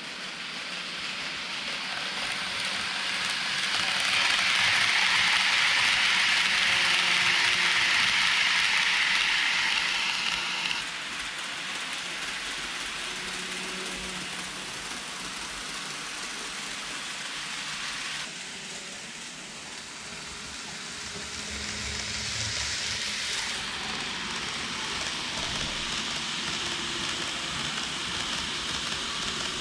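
KATO N-gauge 683 series 4000 'Thunderbird' model train running on the layout's track: a steady hiss of wheels on rail and motor, loudest as it passes close between about four and ten seconds in, then dropping abruptly.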